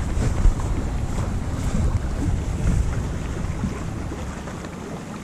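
Wind buffeting the camera's microphone: a steady low rumble with irregular gusts that eases off a little near the end.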